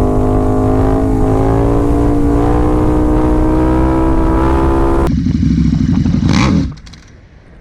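KTM 1290 Super Duke R V-twin with an Austin Racing exhaust, held at high revs for a launch control start, its pitch creeping slowly upward. About five seconds in the high revs cut off abruptly, leaving a low rumble and a brief clatter, and the engine sound falls away near the end. The launch control attempt does not succeed.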